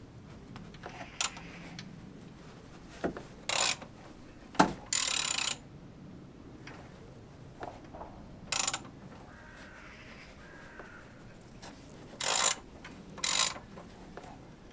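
Ratchet wrench clicking in short bursts on its return strokes as a Subaru EJ20 engine is turned over by hand, with quiet pauses between the strokes. The engine is being rotated a few turns to check that the new timing belt runs without anything binding.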